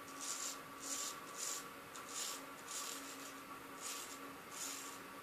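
Wilkinson Sword Empire razor scraping through lathered stubble in short, repeated strokes, a quiet rasp about every half second to second.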